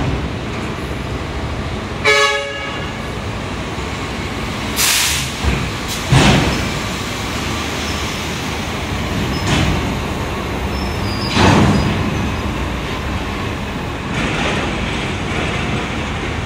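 Heavy diesel machinery of a container yard running steadily: container trucks and a rubber-tyred gantry crane. A short horn toot sounds about two seconds in, and several short hisses of air follow through the rest.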